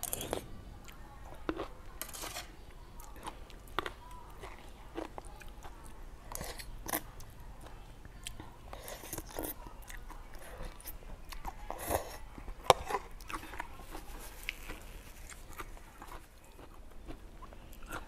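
Close-up chewing and biting of bamboo-shoot curry, picked up by a clip-on microphone, with irregular sharp clicks scattered throughout, the loudest about two-thirds of the way in.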